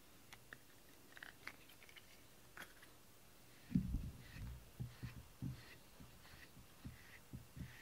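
Rubber grooming brush drawn through a cat's fur: faint, short rustling strokes about twice a second, starting about halfway through, each with a soft low thud. A few small clicks before the brushing starts.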